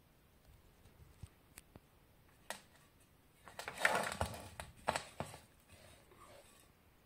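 Close handling noise: a few light clicks, then a second or two of rustling and scraping with some sharp knocks.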